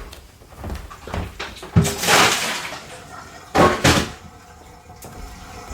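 Handling noises around a defrosted fridge freezer: a clunk, a short splash of meltwater, then two sharp knocks in quick succession.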